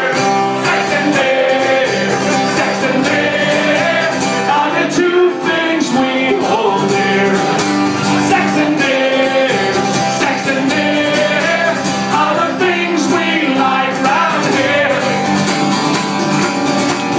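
Live music: a strummed acoustic guitar with singing.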